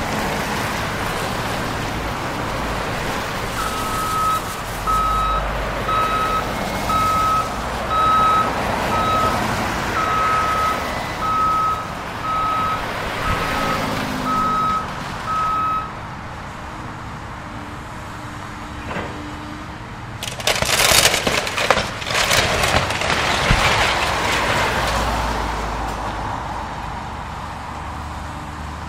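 Caterpillar wheeled excavator running, its backup alarm beeping about once a second for some twelve seconds. About twenty seconds in there are a few seconds of loud crashing and cracking as the house's wooden frame is torn down and debris falls.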